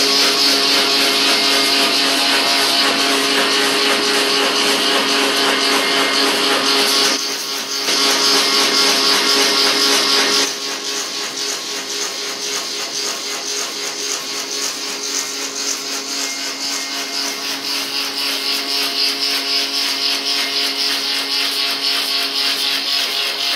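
Woodworking machinery running steadily: an electric motor hum with several held tones under a hiss. The sound drops somewhat in level and brightness about ten seconds in.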